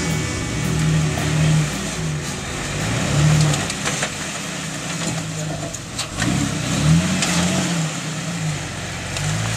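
Jeep Wrangler TJ engine rising and falling in repeated short revs as it crawls over rocks on a steep trail, with a few sharp knocks along the way.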